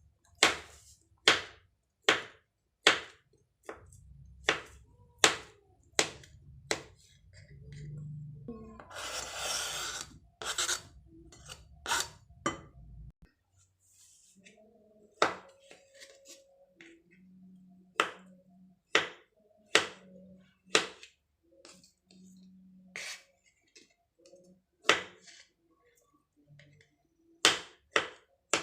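A knife chopping fruit on a cutting board: regular sharp knocks about one a second at first, a brief scraping about nine seconds in, then slower, more scattered cuts.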